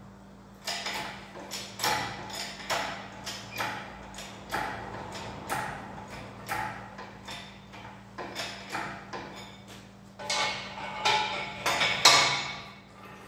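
Hydraulic engine crane being pumped by its hand lever to hoist an engine out of the engine bay: a run of metallic clacking strokes, about two a second, louder near the end.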